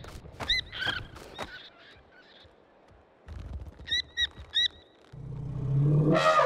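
Cartoon puffins making short squeaky chirping calls, with three quick ones about four seconds in. From about five seconds a rushing noise with a low rumble builds up and is the loudest thing near the end.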